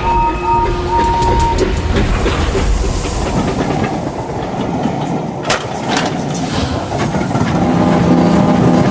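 Train running along the rails with a steady rumble and clatter. A few short toots sound in the first second and a half, and a held horn chord of several notes starts about three quarters of the way through.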